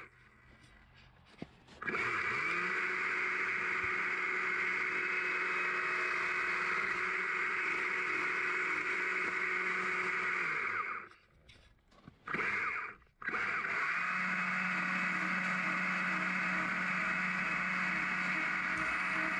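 Stihl battery-powered chainsaw carving a small branch log. Its motor spins up quickly about two seconds in and runs at a steady high pitch. Around the middle it stops twice with a short burst in between, then runs on steadily.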